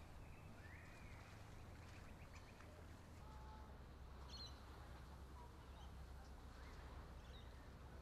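Quiet outdoor ambience with a steady low hum and a few faint, brief bird chirps.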